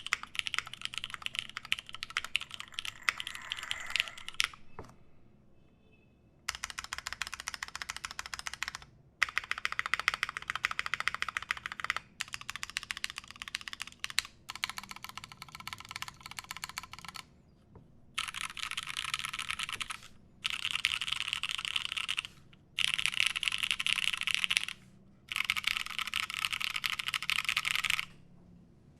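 Satisfaction 75 mechanical keyboard with lubed Nixie switches, an FR4 plate and GMK keycaps, typed on in runs of a few seconds each with short pauses between. The last few runs are denser and brighter.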